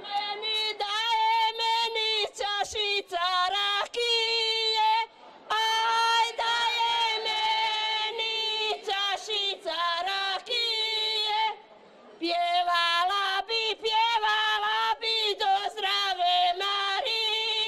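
A group of women singing a Slavonian folk song in sung phrases, with short breaks about five and twelve seconds in.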